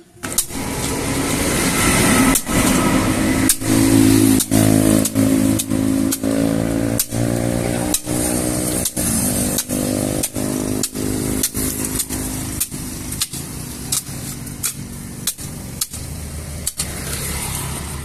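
An engine running steadily, its pitch drifting up and down, with sharp knocks about every half second to second over it.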